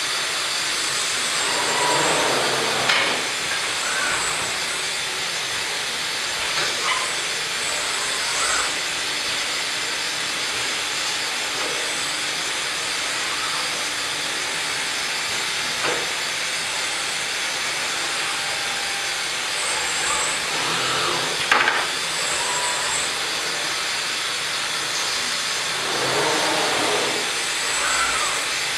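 Steady hiss of a Pade 5-axis CNC woodworking machine and robot cell running, with a few louder hissing swells and sharp single knocks, the sharpest about three seconds and twenty-one seconds in.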